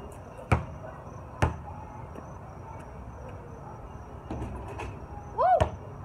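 Basketball dribbled twice, two sharp bounces about a second apart near the start. A shot follows, and near the end a player gives a short exclamation that rises and falls in pitch.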